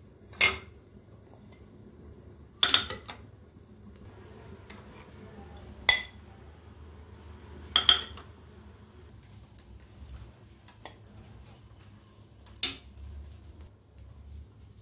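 A steel serving spoon clinking against a plate of curry, five sharp, brief clinks spaced a few seconds apart.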